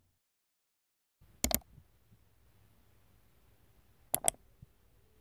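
Computer mouse-click sound effects: a quick pair of clicks about a second and a half in, and another pair just after four seconds, with near silence between.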